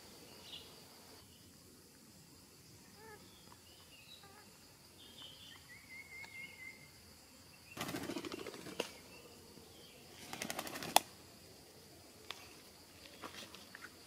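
A parakeet's wings flapping in two short, rapid fluttering bursts about two seconds apart, a little past the middle, as it flies in to land on a hollow tree trunk. Faint bird chirps come before them, and light ticks follow near the end.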